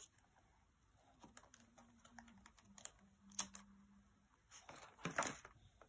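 Faint small clicks and crinkles of a child's fingers handling a card of stick-on bindis and peeling them off, with a sharper click about three and a half seconds in and a short crinkly burst about five seconds in.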